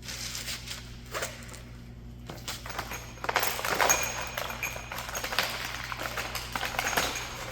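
Ratchet and 15 mm socket clicking on the bumper bolts, with sharp metallic clinks of the tools against the steel bumper. A dense run of clicks and knocks starts about two seconds in.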